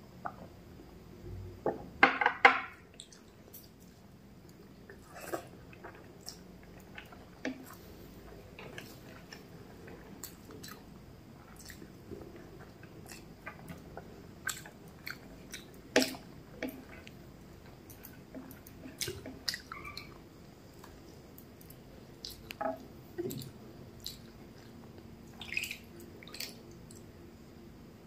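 Close-miked eating sounds of a person eating rice and curry by hand: chewing, soft wet mouth and finger sounds and scattered short clicks, with a louder cluster about two seconds in.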